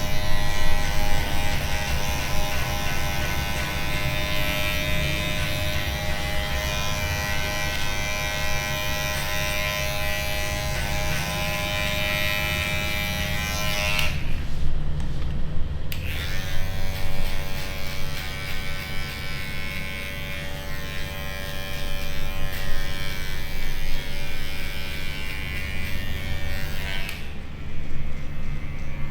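Electric hair clippers buzzing steadily during a fade haircut. They stop for about two seconds about halfway through, run again, and cut off near the end. A steady low rumble runs underneath.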